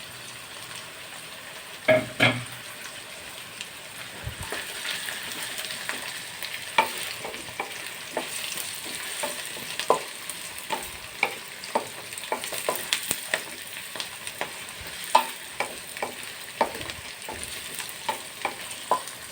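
Chopped carrots and onions sizzling in hot oil in a kadai, with a spoon stirring and scraping against the pan in many short clicks and taps. A louder clatter comes about two seconds in.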